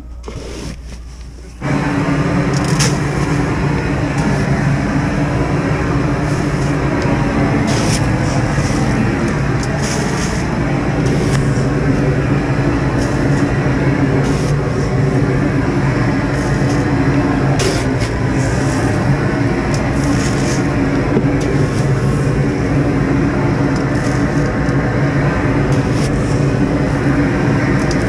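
A motor vehicle engine running steadily at a low, even pitch, which comes on abruptly about two seconds in, with a few light knocks and clicks over it.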